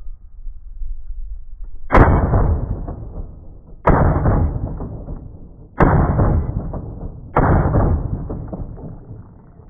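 Four 9mm gunshots about two seconds apart, each a sudden crack that trails off slowly, fired into the same spot on a .75-inch Lexan bullet-resistant panel.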